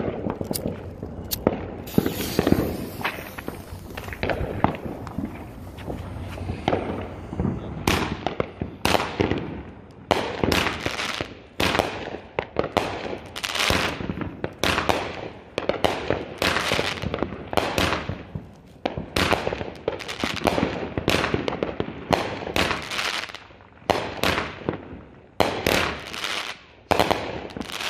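Boomer 'Sexy Girl' 200-gram firework cake going off. It starts with a hiss and a few sharp pops, then from about a third of the way in fires a steady run of shots, roughly one and a half a second, each followed by a crackling tail.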